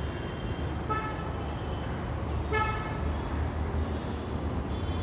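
Street traffic: a steady low rumble of passing vehicles with two short vehicle horn toots, about a second in and again a second and a half later.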